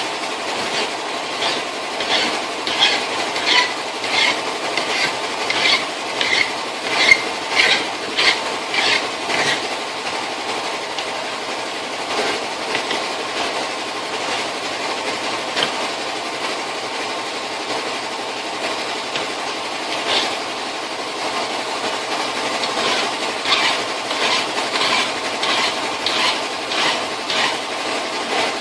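Hand file rasping on the steel jaws of a bench vise in back-and-forth strokes, about two a second, for a stretch near the start and again near the end, with steadier scraping between.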